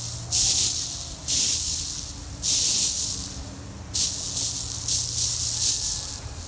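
Lawn sprinklers spraying, just switched on: a water hiss that comes in repeated surges, each starting suddenly and fading over about a second.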